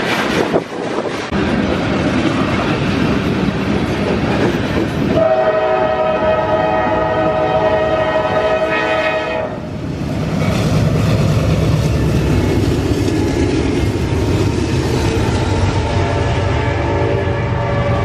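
Freight train passing, with wind buffeting the microphone at first. About five seconds in, a diesel locomotive's air horn sounds a steady chord for about four seconds, then cuts off abruptly. Diesel locomotives and freight cars then rumble past on the rails.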